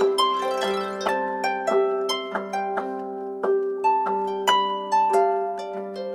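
Samsung Galaxy phone ringtone: a melody of plucked notes, about two to three a second, over a repeating low figure.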